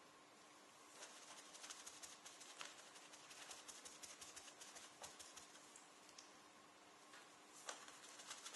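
Faint, rapid dabbing of water-based PU leather dye onto a leather jacket: a quick patter of light taps that starts about a second in, pauses briefly about two-thirds of the way through, then resumes.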